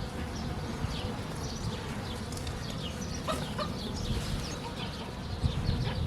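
Small birds chirping repeatedly in short, quick calls, over a steady low rumble of wind on the microphone.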